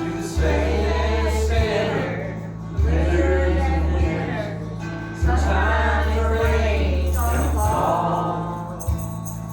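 A Christian worship song: singing voices over deep bass notes that shift every couple of seconds.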